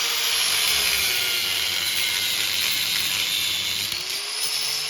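Power tool, most likely an angle grinder with a cut-off wheel, cutting through a steel part of a VW front end: a loud, steady hiss with a high motor whine that sags under load about two seconds in and picks up again near the end.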